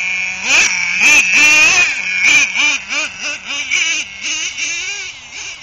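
Glow-plug nitro engine of a custom-built RC truck idling steadily, then revved in quick throttle blips, its pitch rising and falling about three times a second before settling lower near the end.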